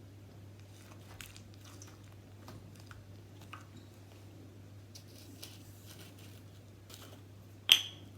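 Slime being handled and pressed, making faint scattered crackles and squishes over a steady low hum, with one sharp, much louder click near the end.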